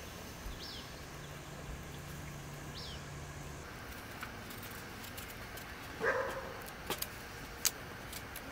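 Quiet outdoor background with two short, high, downward chirps from a small bird in the first few seconds. Later come a brief low sound and a few sharp, light clicks.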